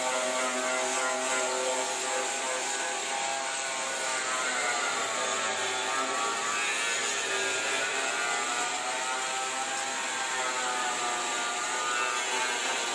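Handheld power sanders running on a car's bare steel body panels: a steady whine with a hiss, its pitch sagging and recovering about halfway through as the pad is pressed harder on the panel.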